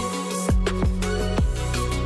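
Background music with a steady beat of deep bass hits, about one a second, over held tones.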